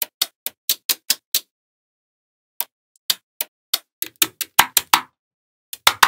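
Small magnetic balls clicking as they snap onto one another, a string of sharp separate clicks: about six in the first second and a half, a pause, then a quicker run of clicks from about two and a half seconds in.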